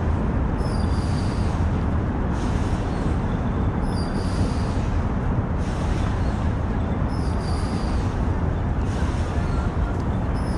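Steady low rumble of city traffic, even and unbroken, with no distinct events standing out.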